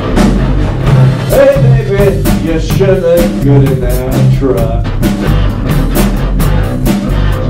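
Blues-rock boogie played live on electric guitar, bass guitar and drum kit, with a steady drum and cymbal beat under it.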